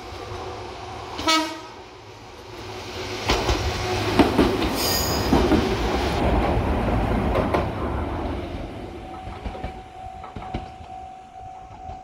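Gakunan Railway 7000 series electric railcar sounding one short horn blast about a second in, then rumbling and clattering loudly as it passes over a steel girder bridge and level crossing, with a brief wheel squeal. A level crossing bell rings on near the end.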